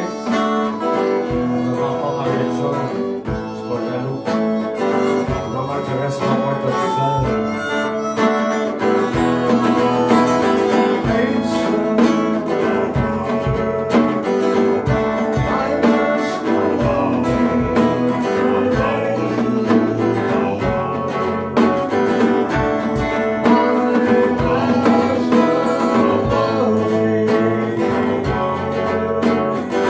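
Live folk-rock band playing: a strummed acoustic guitar with harmonica and drum-kit percussion, with singing at times.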